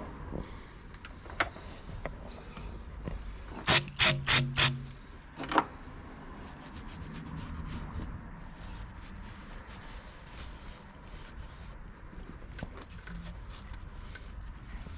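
Rubbing and scraping from hand work on engine parts, with scattered light clicks and a cluster of four short, loud scrapes about four seconds in, then one more a second later.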